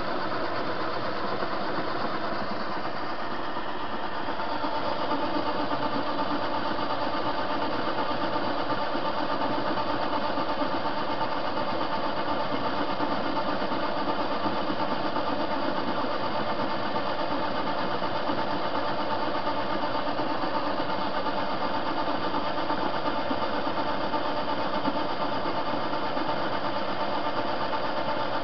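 TV-16 metal-turning lathe running, its motor and gears making a steady hum while the cutter turns down a metal bar. It grows a little louder about four seconds in.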